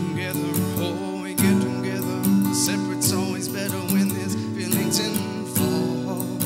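A man singing into a microphone, with vibrato on held notes, over a strummed acoustic guitar accompaniment.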